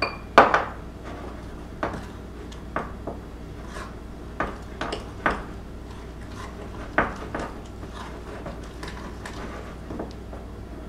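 A utensil knocking and scraping against a mug while stiff cookie dough is stirred and the last of the flour is mixed in. The knocks are irregular, and the loudest comes about half a second in.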